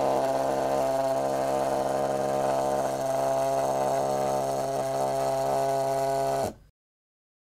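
NEC alphanumeric pager's vibration motor buzzing steadily, the pager walking across a wooden desk as it alerts to a received message. The buzz cuts off suddenly about six and a half seconds in.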